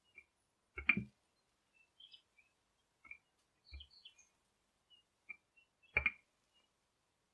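Wooden rolling pin working dough on a floured stone countertop: a handful of soft knocks and bumps as it is pushed back and forth, the loudest about a second in and again about six seconds in, with faint short high chirps between them.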